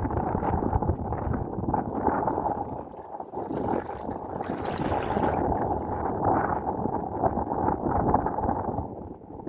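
Wind buffeting the microphone over open sea water, a steady rough rushing that dips briefly near the middle, with a short hiss about five seconds in.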